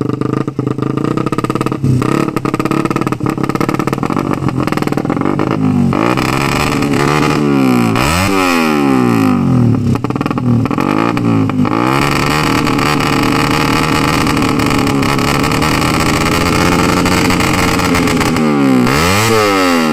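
Ported Suzuki Satria FU race engine being revved hard with the throttle. Its pitch dips and climbs again several times and holds high for several seconds in the middle.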